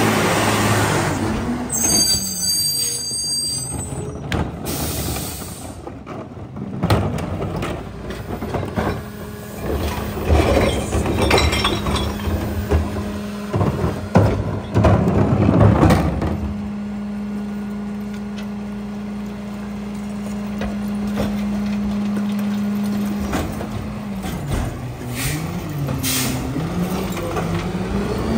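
Freightliner M2 rear-loader garbage truck with a McNeilus body working a pickup. A brief high squeal comes about two seconds in, then plastic carts knock and clatter against the hopper as they are tipped. The engine is held at a steady raised speed for several seconds to drive the hydraulic packer, then drops and rises again near the end.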